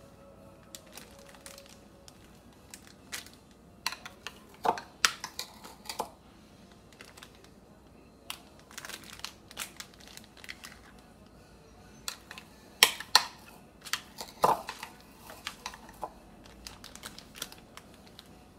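Spoon scraping and tapping against a ceramic bowl and a plastic zip-top bag crinkling as egg yolk filling is spooned into the bag. Irregular clicks and scrapes, with a few sharper taps around five seconds in and again near thirteen to fourteen seconds.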